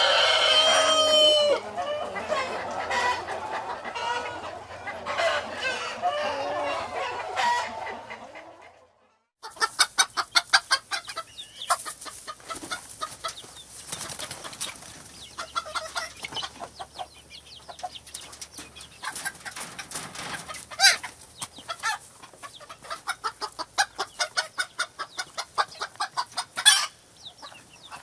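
Chickens clucking and cackling, with a rooster's crow trailing off at the start. About nine seconds in the sound cuts out for a moment, and then comes a dense run of short, rapid clucks from a flock.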